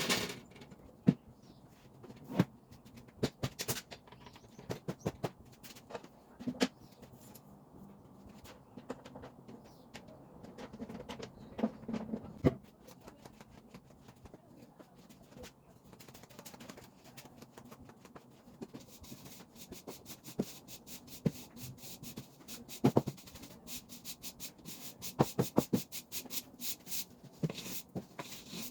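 Household items being handled and moved during cleaning: scattered knocks and clicks with some rustling, growing into a quicker run of small clicks and taps in the last third.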